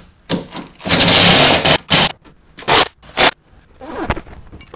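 Milwaukee M18 cordless impact tightening the door hinge bolts: one run of about a second, then three short bursts.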